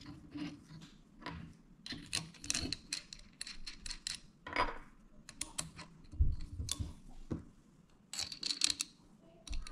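Clicks and clinks of metal and plastic parts of a guided knife sharpener being handled as the clamp holder is fitted onto its guide rod, with a heavier knock about six seconds in.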